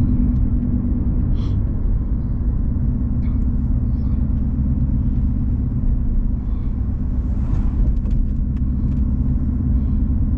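Ford Mustang with a straight-piped MBRP race exhaust, heard from inside the cabin while driving: a steady low engine and exhaust rumble.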